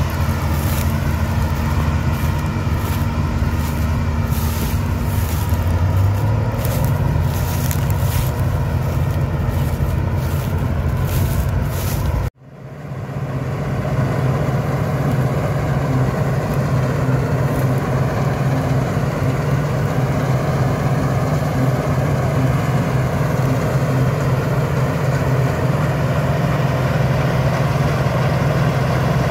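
A John Deere tractor's diesel engine running steadily, with scattered crackles on top. About 12 seconds in the sound cuts off and fades back in to a Claas Dominator 98 SL combine harvester running steadily with a low drone while threshing wheat.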